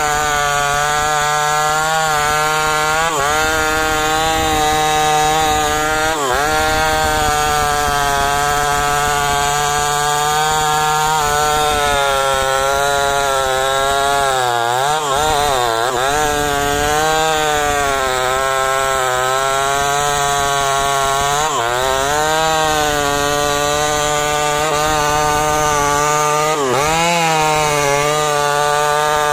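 STIHL MS 250 two-stroke chainsaw running at high revs while cutting through a teak trunk. Its pitch sags briefly about five times under the load of the cut and recovers each time.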